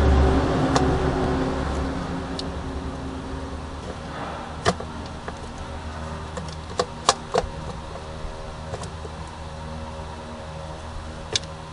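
Sharp metallic clinks and knocks, a handful of them spread through the middle and one near the end, as a starter motor is handled and worked into place against the transmission housing. They sit over a steady low hum that is louder for the first two seconds and then settles.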